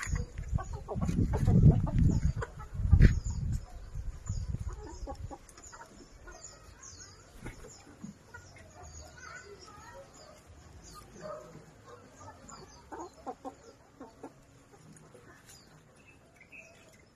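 Backyard chickens clucking at intervals. For the first five seconds a loud low rumble on the microphone lies over them.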